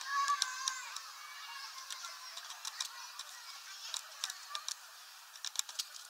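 A great tit pecking and stepping on a plastic window feeder: an irregular scatter of sharp clicks and taps. In the first second a bird call with several pitches comes in from outside.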